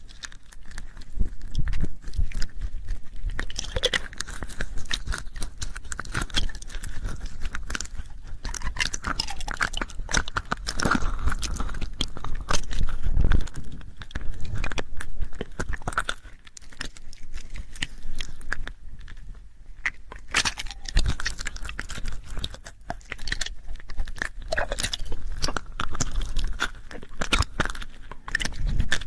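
Close-miked ASMR mouth sounds: a dense run of small wet clicks, smacks and lip-and-tongue noises, with a couple of short lulls past the middle.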